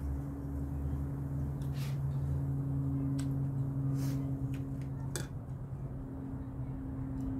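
A steady low machine hum runs underneath, with a few light clicks from chopsticks on plates as people eat.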